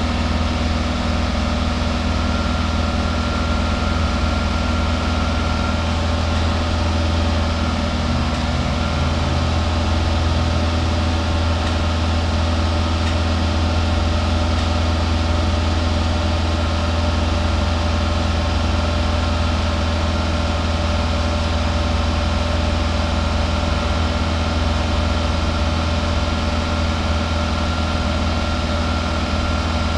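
Toyota 2SZ-FE 1.3-litre four-cylinder engine idling steadily, heard close to its tailpipe.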